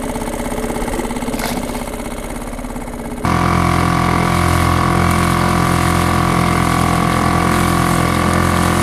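A small motor running at a steady hum. It jumps abruptly louder about three seconds in and then holds steady.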